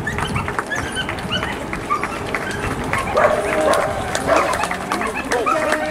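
Runners' footsteps slapping on a tarmac road, with a scatter of short, high animal calls that grow more frequent from about halfway through.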